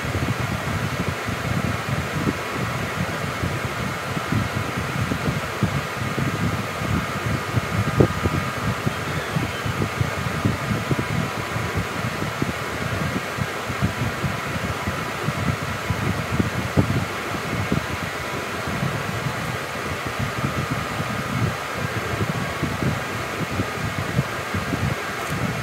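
A fan running: a steady whir of air, with a low, uneven rumble beneath it.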